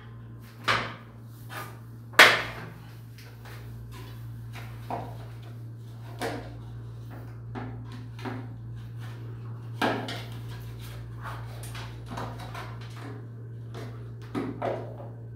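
Scattered clicks and knocks from hands handling the bottom cover and wiring of a wall-mounted electric water heater. The two loudest come in the first few seconds and a pair near the end, over a steady low hum.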